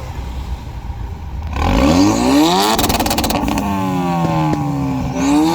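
Turbocharged car engine revved hard about one and a half seconds in, with a rapid run of sharp exhaust pops and bangs from its anti-lag system at high revs. The revs then ease off, hold, and climb again near the end.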